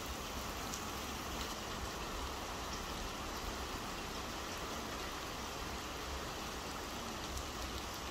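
Rain pouring down steadily, a dense, even hiss with a low rumble underneath that swells and falls.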